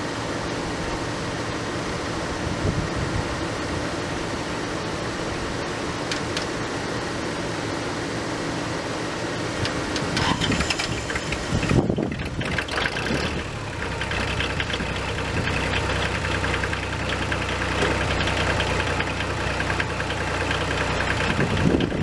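Old pickup truck's engine idling steadily while it jumps a dead tractor battery. About twelve seconds in, after a cut, the Kubota tractor's diesel engine is running too, louder and rougher over the truck's idle, now started.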